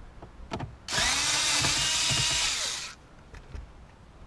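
Snap-on cordless screwdriver backing out a radio mounting screw. Its motor starts about a second in, runs steadily for about two seconds, and winds down as it stops.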